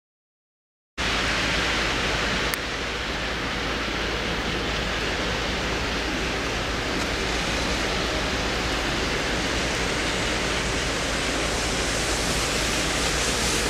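Steady rushing outdoor noise that starts after about a second of silence, with a faint click and a slight drop in level about two and a half seconds in.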